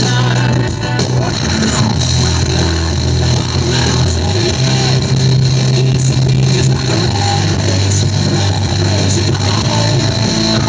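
Loud rock music with guitar played through a loudspeaker, carried by heavy sustained bass notes.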